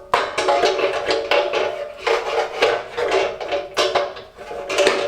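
Thin sheet-metal engine tinware on a Fiat 500 engine clanking and ringing in irregular knocks as a piece is handled and pushed into place. It is not quite sliding on.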